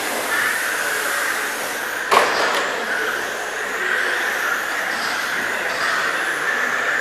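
Electric RC race cars running flat out: a steady whine of motors and gears with tyre noise, rising and falling in pitch as cars pass. A single sharp knock about two seconds in is the loudest sound.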